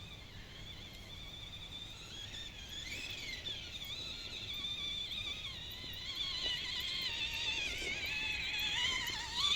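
Gmade R1 RC rock crawler's electric motor and gear drivetrain whining at crawling speed, its pitch wavering and gliding up and down as the throttle changes. It grows steadily louder and stops abruptly at the end.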